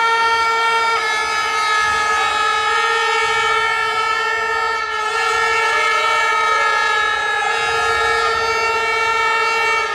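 A horn sounding in one long, steady blast for nearly ten seconds. Its pitch shifts slightly about a second in, and it stops near the end.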